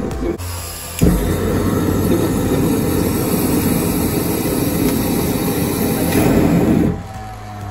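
Homemade scrap-metal jet engine, fed with gas from an aerosol can, burning with a loud, rough rumble. It stops for a moment, lights again abruptly about a second in, runs steadily and dies down near the end.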